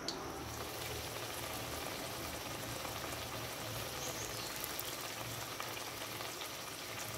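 Two moong dal kachoris deep-frying in hot oil: a steady, even bubbling sizzle.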